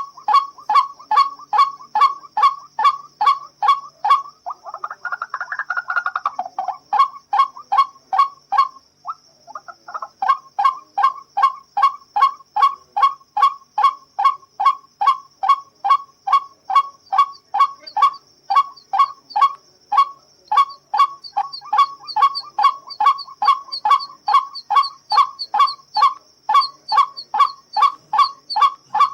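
White-breasted waterhen calling its monotonous, repeated 'kru-ak' notes, about two and a half a second, with a harsher rasping stretch about five seconds in and a brief break near the middle. A steady faint high-pitched whine runs underneath.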